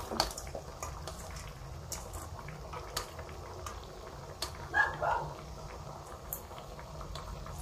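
Cut vegetables tipped from a stainless steel colander into a wok of simmering coconut-milk broth: scattered light clicks and taps of metal and falling vegetables over a low bubbling. A brief louder sound comes about five seconds in.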